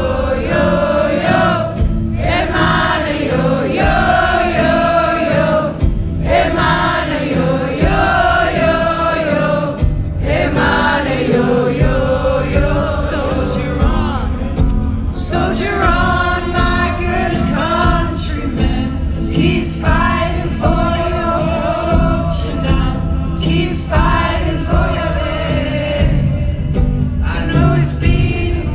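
Live concert music: long sung vocal lines with no clear words, choir-like, over a continuous accompaniment.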